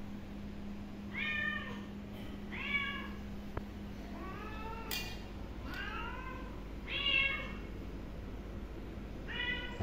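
Calico cat meowing six times, short high-pitched meows a second or so apart, with a sharp click about halfway through.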